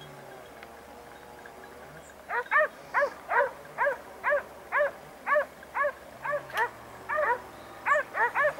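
Hunting dog barking in a quick run of short barks, about two or three a second, starting about two seconds in.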